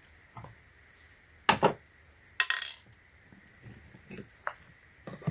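Metal clinks and knocks as the opened battery charger and its parts are handled: two sharp knocks, then a short rattling clink, and a faint tick near the end.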